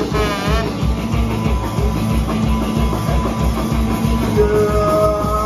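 Live punk rock band (drum kit, electric guitars, bass and trombone) playing a fast song, the kick drum beating about four times a second under the guitars; a long held note comes in near the end.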